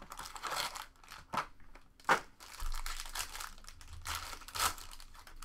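Clear plastic wrapping crinkling and rustling as trading cards are handled and unpacked, with a couple of sharper snaps of the plastic.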